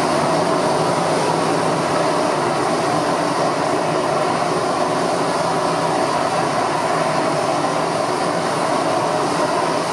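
Steam blowing off from a Southern Railway Q class 0-6-0 steam locomotive standing still: a loud, steady hiss of escaping steam that holds even throughout.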